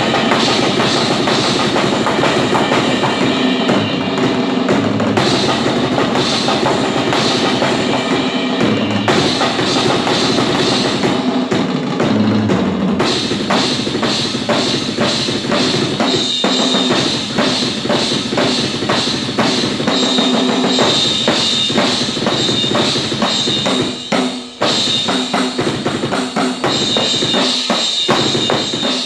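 Drum kit played fast and hard, with bass drum and snare in a dense, continuous stream of strokes and cymbals over the top. There is a brief break a little over four seconds before the end.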